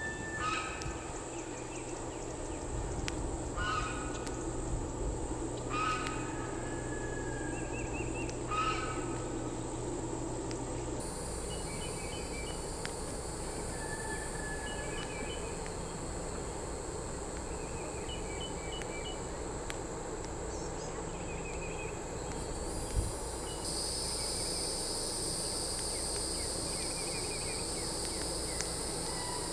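Outdoor ambience of a steady, high insect drone that steps up louder about eleven and again about twenty-four seconds in. Over it come a wild bird's short calls, repeated several times in the first nine seconds, then fainter groups of chirps.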